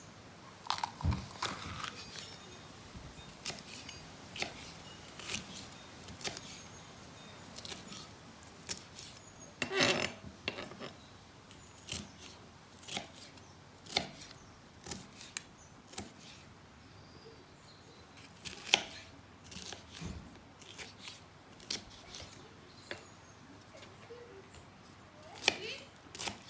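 Ingredients being cut up for a paella: irregular sharp clicks of a blade, about one a second, with a few louder knocks.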